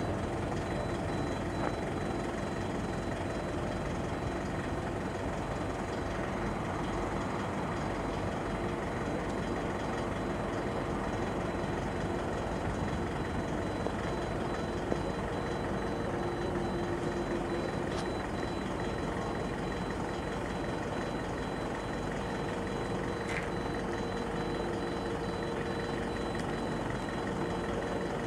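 Truck engine and hydraulic drive of a 14-metre folding-boom aerial work platform running steadily with the basket raised, with a faint, high, intermittent beeping tone over it.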